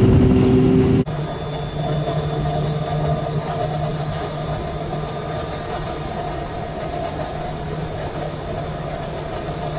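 2000 Yamaha Fazer 600's inline-four engine running steadily while the bike is ridden. About a second in, the sound drops suddenly to a quieter, lower steady hum.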